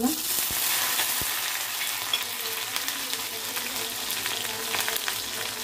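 Sliced sambar onions (shallots) dropped into hot sesame oil with popped mustard seeds and urad dal, sizzling at once and going on as a steady crackling fry, easing slightly after the first couple of seconds.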